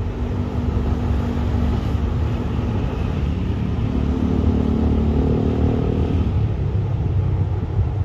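Diesel locomotive's engine running as it approaches slowly: a steady low rumble with a pitched hum that shifts slightly midway.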